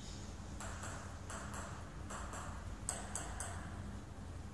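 Faint, light ticks of a table tennis ball bouncing, coming in quick pairs several times over.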